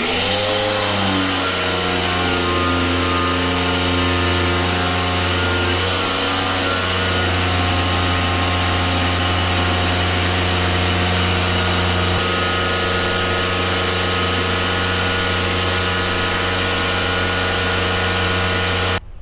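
Tooluck 1800 W electric pressure washer running and spraying through its 25-degree nozzle: a steady motor-and-pump hum over the hiss of the high-pressure water jet. It starts sharply, rising briefly in pitch as the motor spins up, dips slightly in pitch a couple of times, and cuts off suddenly near the end as the trigger is released.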